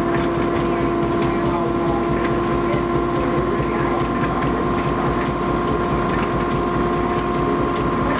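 A 100-plus-year-old cotton gin running steadily, its machinery giving a constant hum with a few steady tones and light regular ticking.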